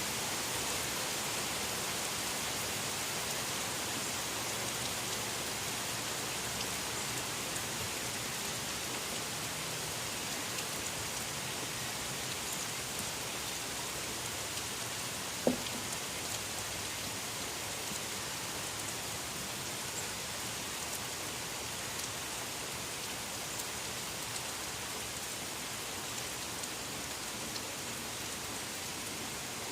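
Steady rain falling, with scattered drips ticking on a surface and a single louder knock about halfway through.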